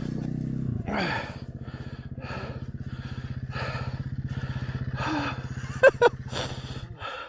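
Two-stroke Kawasaki KDX dirt bike engine dropping back to a low, even idle about a second in, then cutting out near the end, with heavy panting over it and two short sharp squeals about six seconds in.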